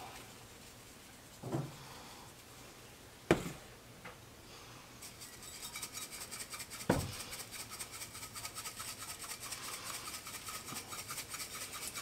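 Handheld spice shaker shaken over a chicken, the dry barbecue rub rattling out in quick, even shakes from about five seconds in. Before that, a few sharp knocks, the loudest about three seconds in.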